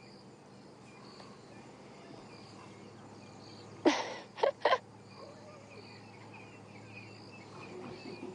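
Insects and birds chirping faintly over a steady low hum. About four seconds in come three quick, loud, breathy bursts, the first the longest.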